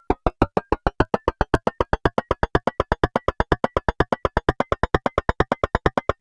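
Synthesized percussive hit, generated entirely without recorded sound, repeated in a quickening series of short, sharp strikes, each with a brief ring. The strikes speed up from about six to about eight a second and climb slightly in pitch as the playback speed is turned up.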